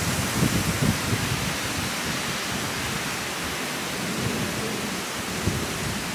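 Wind blowing outdoors: a steady rushing hiss with low rumbling gusts buffeting the microphone, strongest near the start and again about four to five seconds in.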